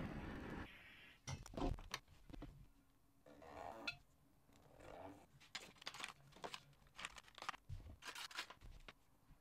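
A handheld gas torch running with a steady noise, shut off within the first second. Then scattered short scratches and crunchy scrapes as a small hand tool marks the dry clay wall of a bowl.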